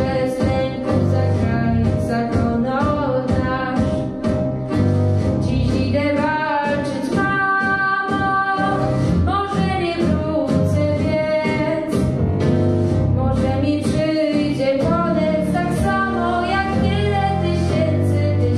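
Teenage girl singing a Polish song solo into a microphone over instrumental accompaniment with a steady beat.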